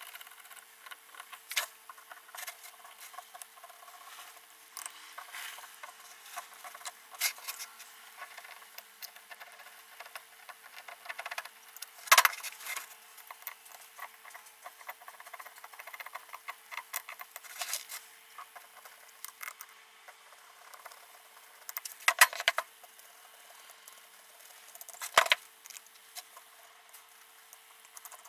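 Small metal and plastic parts of an old electric hand planer being handled on a workbench: scattered light clicks and taps, with a few louder knocks about twelve, twenty-two and twenty-five seconds in.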